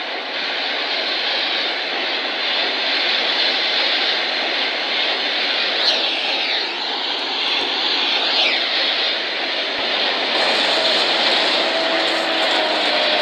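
A loud, steady rushing noise with two brief downward sweeps, about six and eight and a half seconds in.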